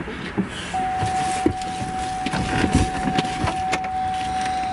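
A car's steady electronic warning tone comes on about a second in and holds, sounding while a door stands open. Under it are clicks, knocks and rustling as someone climbs into the vehicle.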